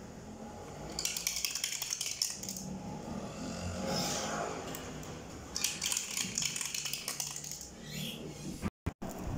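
Small wooden toy car clattering down a wooden zigzag ramp, clicking as it drops from one slanted step to the next. Two runs, starting about a second in and again near six seconds.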